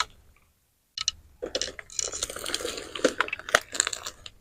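Hands digging through loose potting soil around sweet potato tubers: a brief scrape, then from about a second in a dense, crackling rustle of soil and roots being worked loose.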